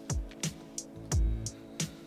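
Background electronic music with a steady beat: deep kick drums and sharp hi-hat ticks over held tones.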